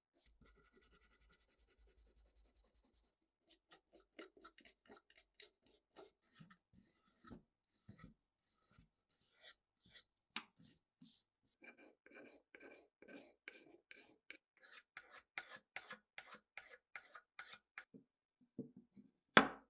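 Stiff hand brushes scrubbing the grimy wooden buttstock of an old Thompson submachine gun, in many short strokes that come faster and louder as the work goes on. A single loud knock comes just before the end.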